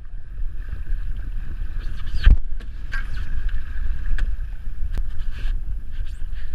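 Wind rumbling on the microphone and water rushing along the hull of a Dart 18 sailing catamaran under way, with a few sharp knocks, the loudest about two seconds in.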